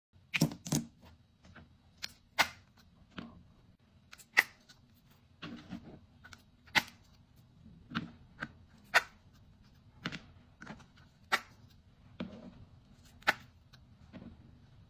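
Irregular sharp taps and clicks, roughly one a second, some followed by short scratchy rustles, from hands handling sand-painting materials at close range.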